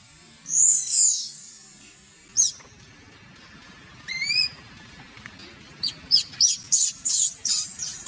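Infant macaque screaming in shrill, high-pitched distress cries while its mother pins it to the ground: one long falling scream about half a second in, a quick run of rising chirps around the middle, then a fast string of squeals over the last two seconds.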